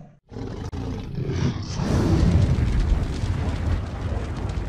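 Logo-animation sound effect: a deep rushing noise that starts a moment in, swells with a short rising sweep, and tapers off near the end.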